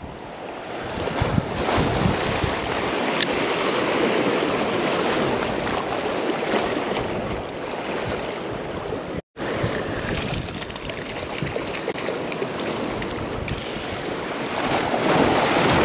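Ocean surf washing against a rocky shoreline, with wind buffeting the microphone. The sound cuts out for an instant about nine seconds in.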